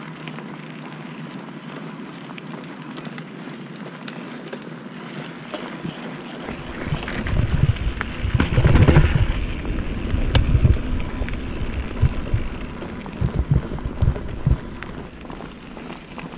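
Mountain bike riding a trail, with tyre noise and small clicks, and wind on the camera microphone. About six seconds in, wind buffeting starts and comes in loud gusts that drown out the rest.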